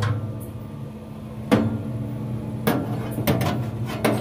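Steel parts of a Grilla Grills Silverbac pellet grill being fitted back over the lit firebox, clanking several times, over the steady low hum of the running grill.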